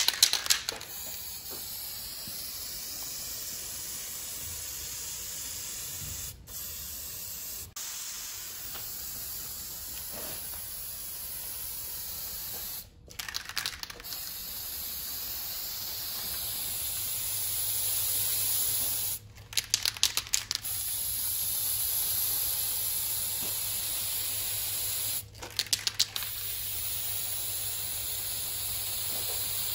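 Aerosol spray-paint can hissing in long steady bursts as paint goes onto a clay roof tile. Three times it stops for a short spell of rapid rattling, the mixing ball as the can is shaken.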